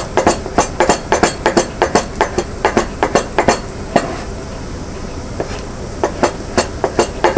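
Chef's knife chopping black truffle on a cutting board: quick knocks of the blade on the board, about three a second, pausing for a couple of seconds midway and then starting again.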